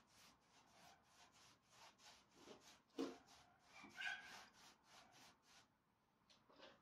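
Faint quick swishing of a paintbrush stroking stain onto wooden boards, with a soft knock about three seconds in and a brief thin squeak just after.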